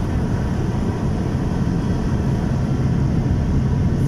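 Airliner jet engines running, heard from inside the cabin as a steady low drone that grows slightly louder across the few seconds.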